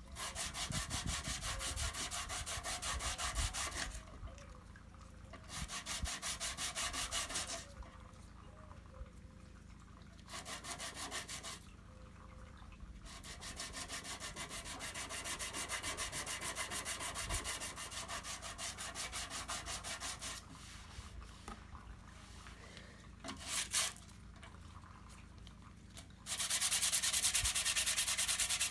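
Dry sanding of cured body filler with sandpaper: rapid scratchy back-and-forth strokes in several bouts with short pauses between them. The last bout, near the end, is the loudest.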